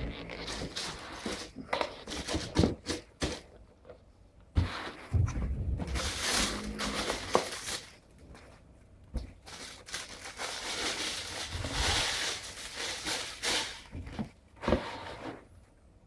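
Shoe packaging being handled: irregular rustling and crinkling of paper, with scattered knocks and clicks of the box and shoes being moved.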